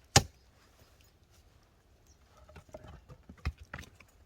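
Firewood being split and handled: one sharp, loud knock just after the start, then a run of smaller wooden knocks and clatter in the second half.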